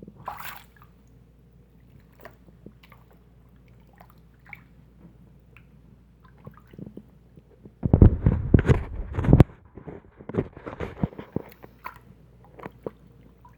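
Water sloshing and squishing in a filled sink as a wadded cloth is worked up and down in the clogged drain as a makeshift plunger. Small drips and taps at first, then a loud burst of sloshing about eight seconds in and more splashing after it.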